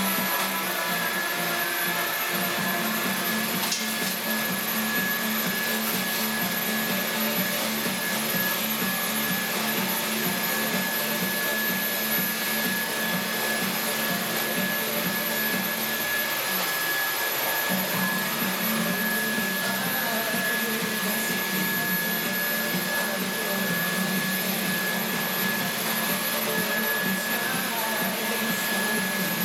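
Cordless stick vacuum cleaner running steadily, a constant high whine over the rush of its motor and suction.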